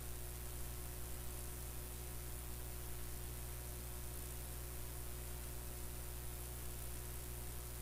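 Steady low electrical hum with an even hiss underneath; no distinct clicks or clock ticks stand out.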